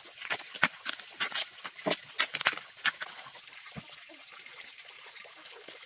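Bamboo-shoot sheaths being torn and stripped off by hand: a quick run of crisp crackling tears and snaps, thinning out after about three seconds.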